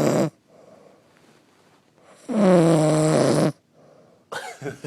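A young woman snoring loudly while passed out asleep: one long snore trails off just after the start, and another of just over a second comes about two seconds in.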